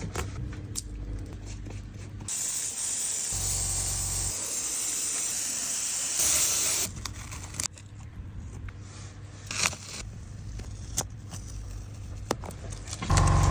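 Scraping and rustling handling noises, with a steady hiss lasting about four and a half seconds from about two seconds in.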